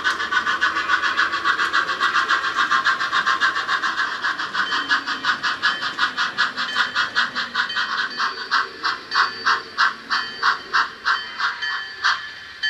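Steam exhaust chuffs from the Bachmann Sound Value DCC sound decoder in an HO-scale 4-6-0 model steam locomotive, played through its small speaker. The chuffs slow steadily from a fast beat to about two a second as the locomotive decelerates toward a stop.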